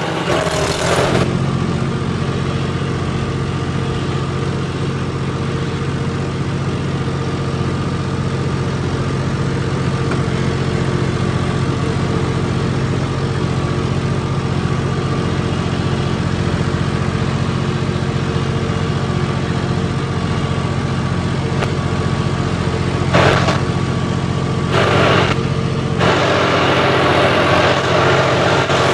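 John Deere 5405 tractor's modified turbo diesel engine running at a steady, unchanging speed while the tractor pulls ploughs in 4x4. Two short rushes of noise come near the end, and a louder hiss joins the engine for the last few seconds.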